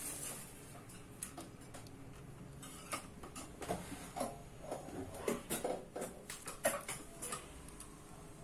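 Faint, irregular light clicks and taps of fingers and metal tweezers handling the thread around the looper of a Jontex industrial overlock during threading, several a second, clustered in the middle; the machine is not running.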